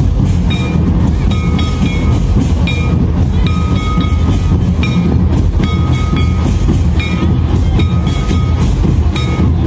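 Large double-headed dance drum beaten in a steady rhythm, heavy and overloaded in the low end on the recording, with a high piping whistle-like tone coming and going over it.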